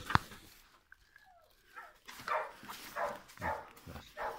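A dog barking, about five short barks in the last two seconds, after a single sharp knock just after the start.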